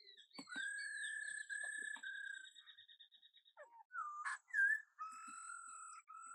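Puppies whining: a series of high-pitched held whines, some starting with a short downward slide, broken by brief pauses, with a short sharp click about four seconds in.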